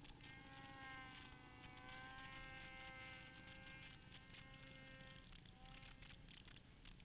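Faint, steady buzz of a snowmobile engine holding one pitch for about five seconds, then fading away.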